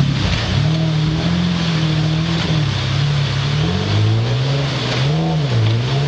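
Four-wheel-drive's engine revving under load as it drives out of a river and up a muddy bank, its pitch holding, dropping about halfway, then rising and falling again. Water splashes and churns around the wheels.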